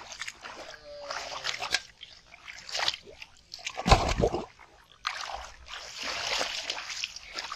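Hands splashing and sloshing in shallow muddy water while grabbing for fish, with a loud, deep splash about four seconds in.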